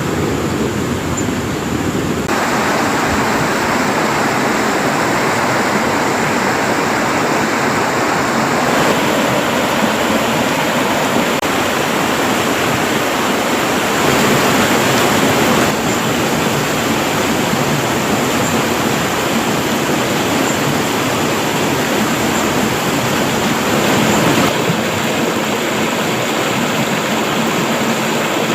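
Steady rush of flowing river water, its level and tone shifting abruptly a few times.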